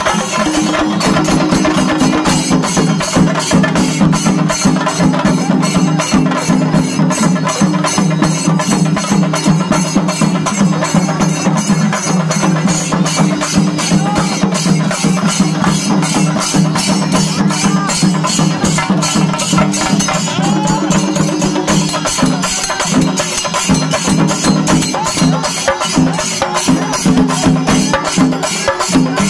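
A Singarimelam ensemble playing loud and fast: many chenda drums beaten in a dense, driving rhythm, with ilathalam cymbals.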